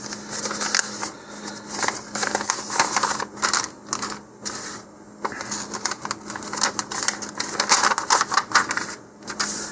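Folded paper instruction sheet being unfolded and flattened by hand: irregular, crisp rustling and crackling of the paper.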